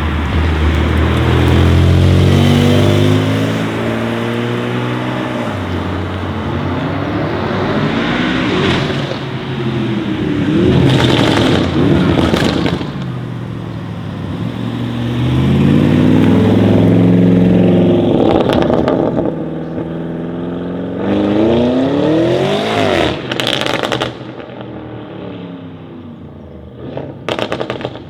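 Tuned 750 hp Audi RS7 Sportback C8's twin-turbo V8 and exhaust, accelerating hard several times with the engine note climbing and dropping, each run broken by bursts of popping crackles on the overrun. It quietens near the end, with a last few crackles.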